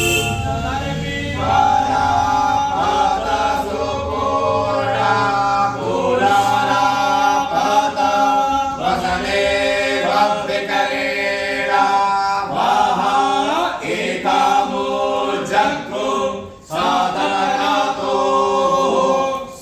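Sanskrit Vedic mantras chanted aloud in a steady, phrase-by-phrase recitation, with a brief pause near the end.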